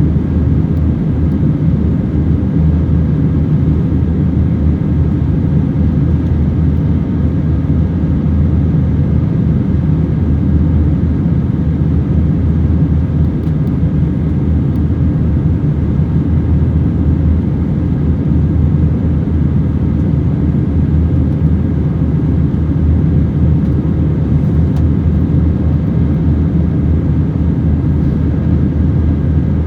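Steady cabin noise inside an Airbus A321-200 in flight: a constant low drone of engines and airflow, unchanging throughout.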